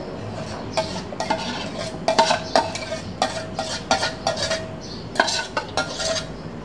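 A metal utensil clinking and scraping against a ringing metal pot or bowl in a run of irregular strokes, as food is stirred or mixed while cooking.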